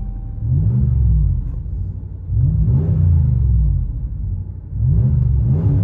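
2019 Ram 1500's 5.7-litre Hemi V8 through a dual exhaust with a Flowmaster Super 44 muffler, heard from inside the cab, revved three times. Each rev rises and falls in pitch over about a second and a half.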